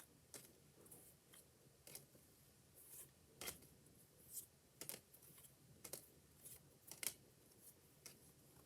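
Faint, short clicks and snaps of trading cards being handled and flipped through, about two a second, with a sharper snap about three and a half seconds in and another about seven seconds in.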